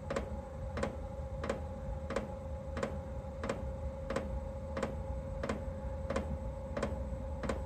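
Chinese diesel parking heater during ignition: its fuel dosing pump ticks steadily, about three clicks a second, over the steady whine of the combustion fan.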